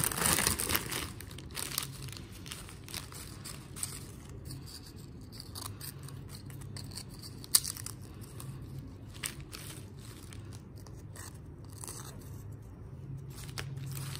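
Foil-lined Lay's potato chip bag crinkling loudly as it is pulled open in the first second or so, then quieter rustling of the foil and the chips as they are handled. There is one sharp crack about seven and a half seconds in.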